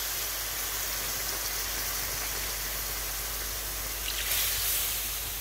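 Koi fish and spice paste cooking in a wok with a little water just added: a steady sizzling hiss, with a brief louder swell about four seconds in.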